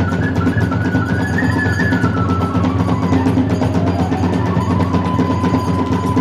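Kagura hayashi accompaniment: a bamboo flute (fue) melody over continuous drum and hand-cymbal beating. The flute steps down through its phrase and settles on a long held note in the second half.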